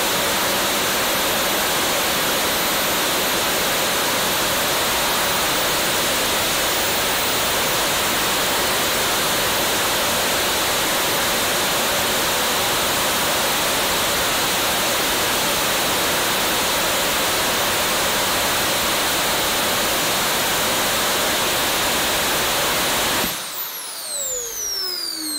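Small turbojet engine with a see-through combustion casing running at high throttle: a steady roar with a high whine over it. About 23 seconds in the roar cuts off suddenly, and the turbine spins down with several whistles falling in pitch.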